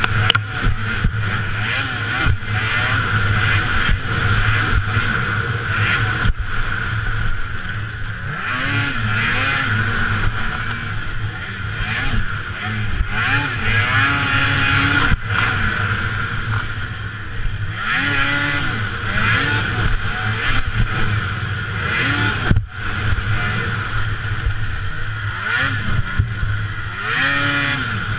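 Racing snowmobile engine running hard, its pitch rising and falling again and again as the throttle is worked, with a few brief sudden drop-outs in the sound.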